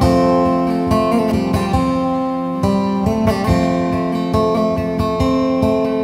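Instrumental music on a plucked string instrument: a repeating picked melody, several notes a second, over steady low sustained notes.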